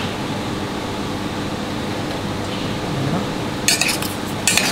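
Steady mechanical hum in the background. About three and a half seconds in come a few short clatters as cut tomatoes are tossed by hand in a stainless steel mixing bowl.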